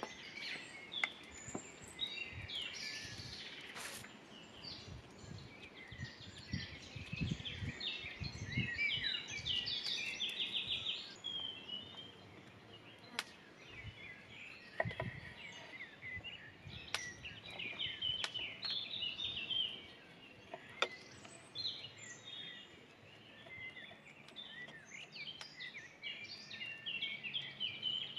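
Small birds chirping and singing, with a few sharp knocks of a chef's knife cutting through bacon onto an end-grain wooden cutting board.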